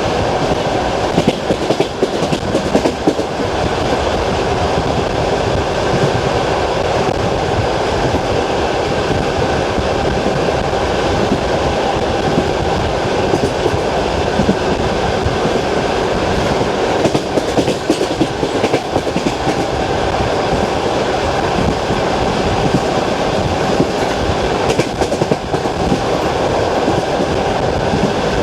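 Long-distance passenger train running on jointed track, heard from inside the carriage: a steady rolling rumble with the clickety-clack of the wheels crossing rail joints, the clacks coming in groups every several seconds.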